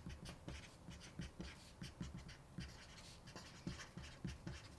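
Felt-tip marker writing capital letters on paper: a faint run of short scratching strokes, one after another.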